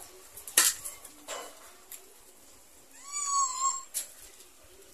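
Knife stabbing into a plastic jerrycan to cut a hole: a few sharp taps, and about three seconds in a high squeal lasting almost a second.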